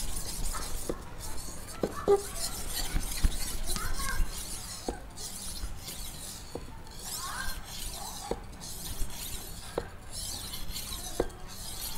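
Vanadis 8 steel golok blade stroked back and forth on a wet natural Bogor whetstone of about 600 grit: a hissing scrape on each stroke, one roughly every second or two, with short light clicks between strokes.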